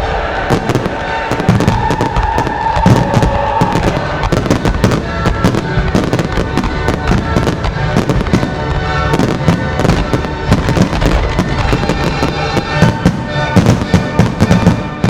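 Display fireworks going off in a rapid, continuous barrage of bangs and crackles over music played along with the show. The bangs come thickest just before the end.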